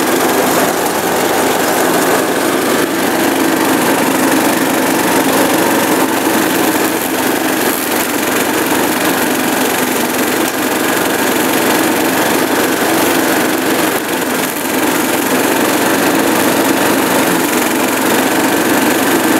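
Murray riding lawnmower's engine running steadily at working speed while the mower cuts grass, heard from the driver's seat. The sound is an even drone with no breaks or stalls.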